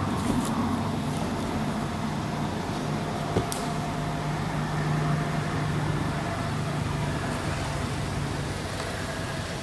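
Steady low engine hum of a motor vehicle running, strongest about midway, over a background hiss, with a single short click about three and a half seconds in.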